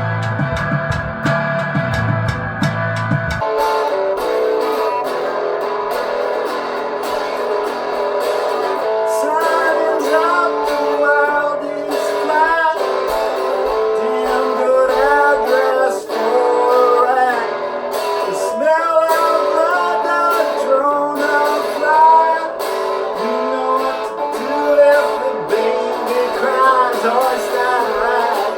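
Live cover-band music led by guitar, with a wavering melodic line over it and no words sung. The sound changes abruptly a few seconds in, from a bass-heavy passage to the guitar-led one.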